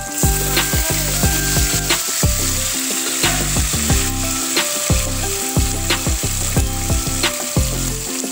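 Garlic cloves and cumin seeds sizzling steadily in hot oil in a kadhai, a continuous frying hiss. Background music with a steady beat runs underneath.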